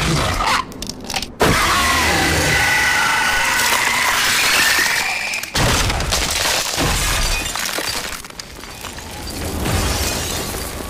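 A White Walker shatters into ice in a sudden loud crash of breaking, like glass, about a second and a half in. High ringing tones follow for about four seconds and stop abruptly, then a lower rumble continues under the film score.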